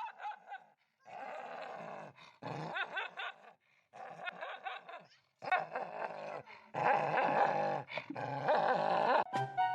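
A dog making a run of about five drawn-out vocal sounds with wavering pitch and short gaps between them.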